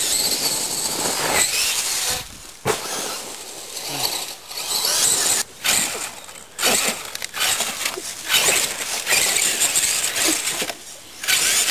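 Electric RC monster truck's motor and gear drivetrain whining in short throttle bursts, stopping and starting several times as it crawls over branches.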